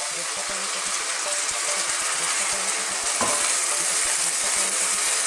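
Bean sprouts and chicken sizzling steadily in a hot frying pan as water is poured in from a jug.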